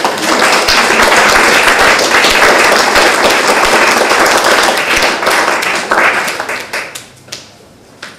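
Small audience applauding, a dense patter of many hands that dies away about seven seconds in, followed by a few last single claps.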